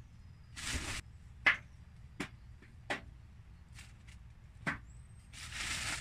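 Dry, crispy banana skins being turned over by hand on a large metal tray: a few separate sharp clicks and taps, with short rustles, the longest near the end as a black plastic sheet is handled.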